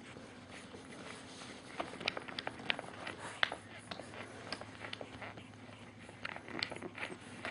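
A two-and-a-half-week-old French Bulldog puppy moving and mouthing on a fleece bed: scattered soft clicks and rustles, in clusters about two and three and a half seconds in and again near the end.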